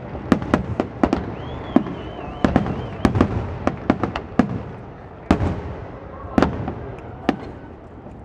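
Fireworks display: aerial shells bursting in a rapid run of sharp bangs, packed close for the first few seconds and then more spread out, over a steady wash of noise. A faint warbling whistle sounds briefly about a second and a half in.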